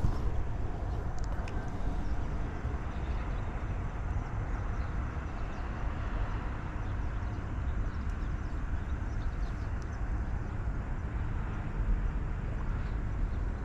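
Steady outdoor background noise: a low, fluctuating rumble under an even hiss, with a few faint ticks.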